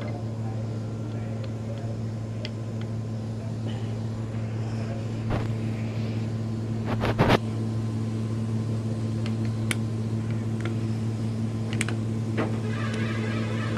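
A steady low machine hum with scattered sharp metallic clicks and taps, and a short cluster of loud knocks about seven seconds in.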